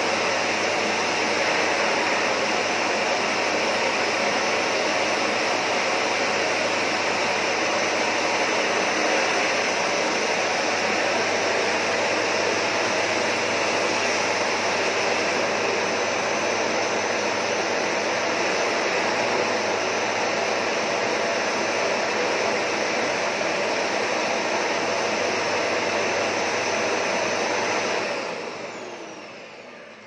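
Philips PowerPro Compact bagless canister vacuum cleaner running steadily at full suction with its brush nozzle worked over a fabric sofa, with a faint high whine over the rush of air. About 28 s in it is switched off and the motor winds down.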